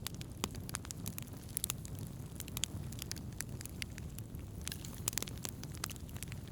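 Wood campfire burning, with frequent irregular sharp crackles and pops over a steady low rush of flame.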